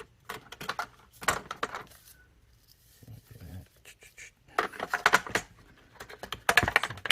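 Hard plastic parts of a vacuum cleaner head clicking and rattling as they are handled and fitted together by hand, in four short bursts.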